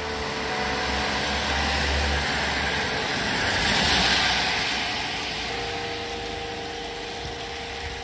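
A vehicle passing by: a low rumble, then tyre and road noise that swells to a peak about halfway and fades away. Church bells ring underneath, their ringing tones coming back clearly near the end.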